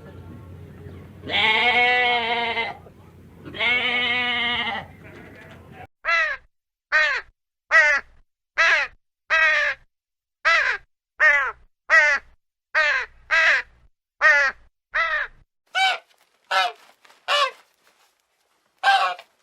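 Two long, wavering bleats from a farm animal, then a quick run of short, sharp calls from a different animal, about one and a half a second, stopping near the end.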